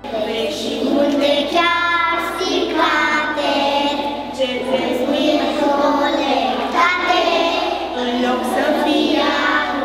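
A group of young preschool children singing a song together.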